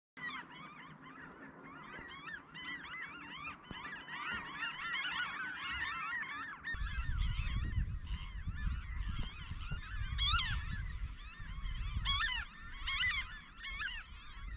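A large flock of water birds calling all at once, a dense chatter of many short, rapid, overlapping calls. A low rumble joins about seven seconds in.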